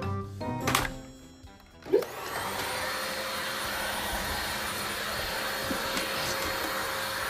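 An electric motor, of the kind in a vacuum cleaner or hair dryer, spins up with a quick rising pitch about two seconds in and then runs with a steady whirring hiss. Music plays before it starts.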